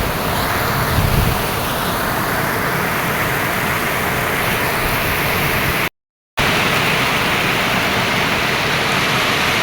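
Chepkiit waterfall's water rushing, loud and steady, cutting out for about half a second roughly six seconds in.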